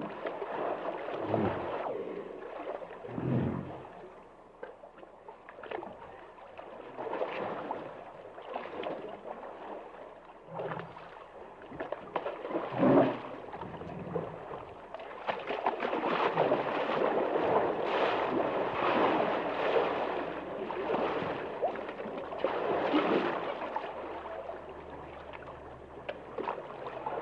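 Hippos calling in low, irregular bursts amid sloshing, gurgling water, with the loudest burst about 13 seconds in.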